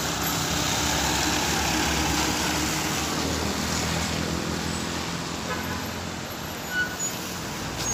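Light trucks passing close on a wet road: engine hum under the hiss of tyres on the wet surface, loudest a second or two in and easing off after.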